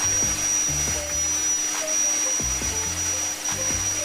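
Bosch GCO 200 cut-off saw's brushed motor running steadily at speed with no load, a high whine holding one pitch after spinning up, on a series test connection after a field coil repair.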